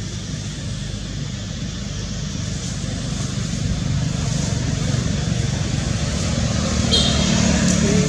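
A steady low rumble that grows louder toward the end, with a brief high chirp about seven seconds in.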